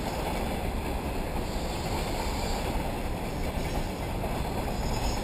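Steady low rumbling noise of wind buffeting the microphone.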